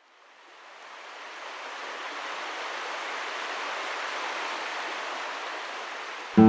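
Running water, an even rushing like a stream or spring, fading in over the first two seconds and holding steady. Acoustic guitar comes in loudly just before the end.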